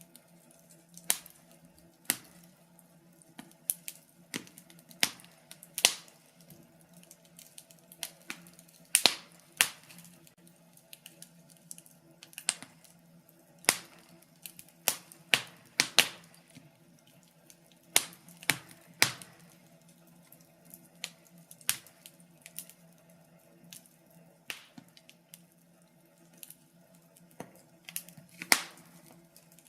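Wood fire crackling in a fireplace, with sharp pops and snaps at irregular intervals, often one or two a second, some in quick clusters. A faint steady hum runs underneath.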